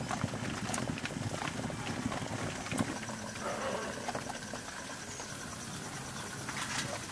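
Water bubbling and crackling under a steel steamer, with light metal clinks as a steel tumbler is lifted out and set down on a steel plate near the end.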